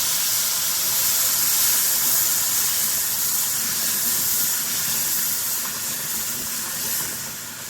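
Hot water hitting ghee-roasted gram flour and sugar in a hot pan, sizzling and hissing loudly and easing off slowly toward the end.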